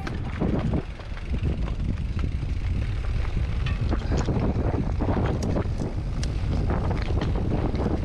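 Wind rumbling on a GoPro action camera's microphone as a Specialized Levo SL e-mountain bike descends a steep, rocky dirt trail, with tyres rolling over dirt and leaves and frequent small clicks and rattles from the bike over the rough ground.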